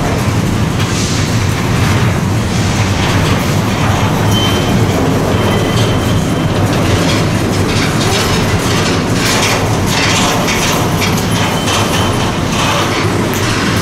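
Train passing close by, its cars rolling over the rails with a steady, loud rumble and some clicking of the wheels.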